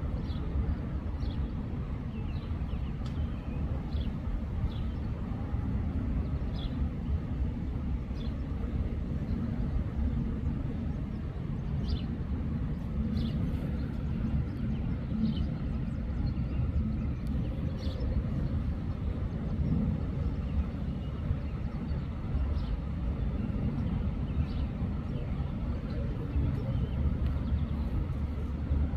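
Outdoor ambience: a steady low rumble with faint, short high chirps scattered every second or so.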